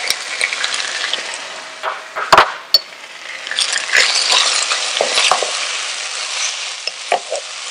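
Shredded chicken, onions, chilies and freshly added chopped garlic frying in hot oil in a pot, sizzling steadily while a wooden spatula stirs and scrapes through them. Scattered clicks, with one sharp knock about two and a half seconds in.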